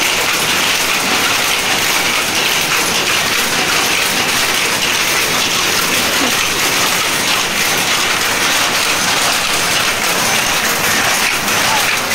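Jacquard power loom running, a loud, steady, rapid mechanical clatter of the weaving strokes.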